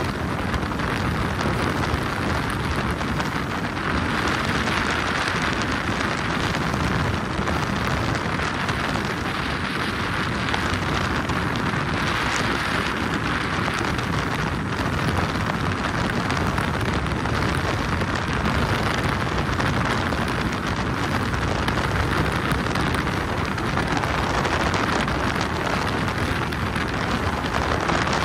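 Steady rushing noise from a moving boat: wind buffeting the microphone and water rushing past the hull.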